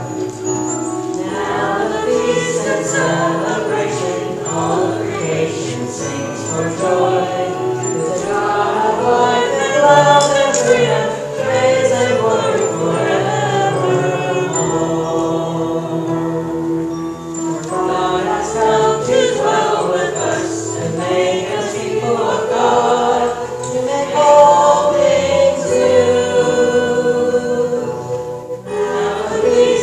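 A hymn sung with live accompaniment: voices singing over a strummed small stringed instrument and conga drums.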